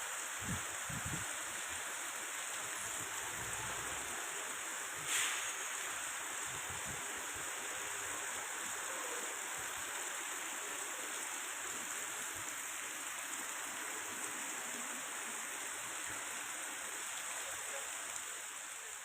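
Heavy rain and rushing floodwater, a steady hiss. One brief sharp click about five seconds in.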